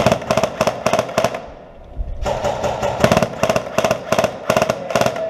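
Airsoft MP5 replica firing close by in two strings of rapid shots, about four a second, with a short break about a second in.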